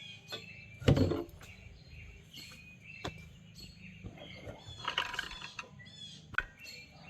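Small birds chirping in the background, with a loud knock about a second in and a few lighter clicks and clunks of hardware being handled.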